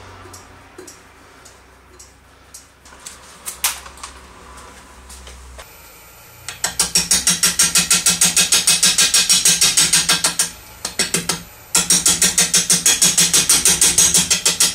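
A few knocks as the large plane-wood blank is handled on the lathe, then a turning gouge making an interrupted cut on the spinning, out-of-round blank: loud chopping about five times a second as the edge strikes the high spots each revolution, pausing once briefly near the middle.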